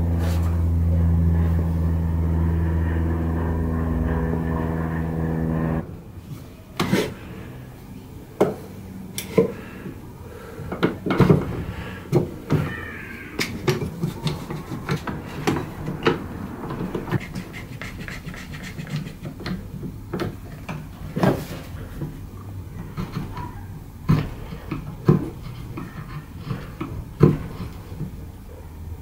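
A steady motor hum that cuts off abruptly about six seconds in, followed by irregular sharp clicks and knocks of quick-grip bar clamps being set and adjusted around a wooden leg tenon.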